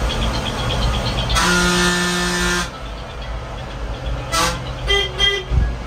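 A vehicle horn sounds one blast of a little over a second, then two short higher beeps come a few seconds later, over the steady rumble of a bus running through town traffic. A low thump follows near the end.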